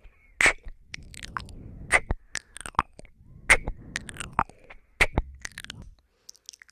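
ASMR ear-nibbling and kissing mouth sounds close to a binaural microphone: wet smacks and sharp clicks, the loudest about every second and a half, over soft breathy noise. They stop shortly before the end.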